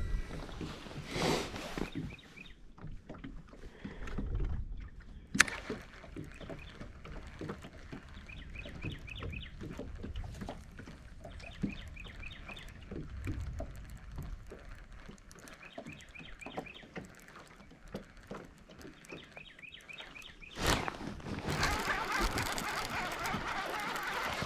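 Water lapping and wind noise around a bass boat, with the handling of a baitcasting rod and reel and one sharp click about five seconds in. Near the end a louder rush of splashing as a hooked bass is worked to the boat.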